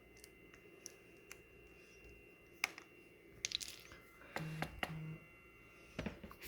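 Faint, scattered clicks and taps of hard plastic and metal trimmer-handle parts being handled and fitted together, with a busier run of clicks and rubbing a little past halfway and a knock near the end.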